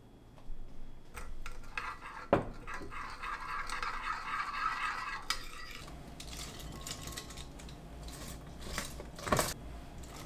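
Metal spoon scraping and clinking against a ceramic bowl as a thick chili-paste sauce is stirred, with one sharp clink about two seconds in. After about six seconds come softer rustles and a couple of taps as shredded cabbage is piled into a glass bowl.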